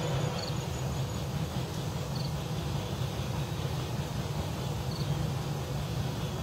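Outdoor background noise in woodland: a steady low rumble with an even hiss above it. Three faint, short, high chirps come through, near the start, about two seconds in, and about five seconds in.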